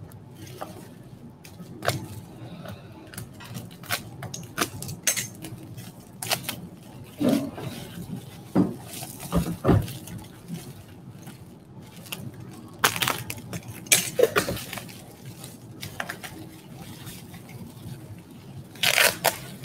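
Bubble wrap and plastic wrapping crackling and rustling in irregular bursts as a teacup is unwrapped by hand, with a louder rustle near the end.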